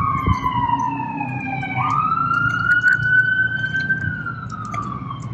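Emergency vehicle siren wailing. Its pitch slides slowly down, jumps back up a little under two seconds in, climbs slowly, then falls again.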